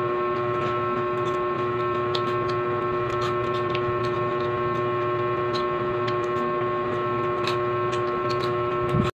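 A steady machine-like hum with two strong held tones, one low and one higher, at an even level, under a few faint crisp clicks of crunchy snacks being chewed.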